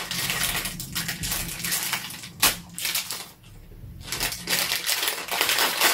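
Small plastic wrapper crinkling and rustling as it is pulled open by hand, with one sharp click about two and a half seconds in, a brief lull, then more crinkling.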